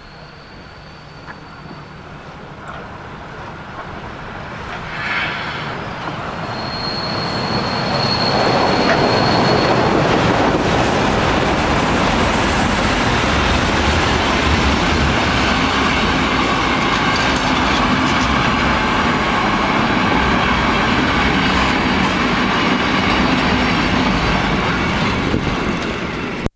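DR class 50 steam locomotive 50 3708 hauling passenger coaches past, growing louder over the first nine seconds or so as it nears, then a steady loud rumble and clatter of coach wheels on the rails as the train rolls by. A thin high squeal sounds briefly near the start and again about seven seconds in.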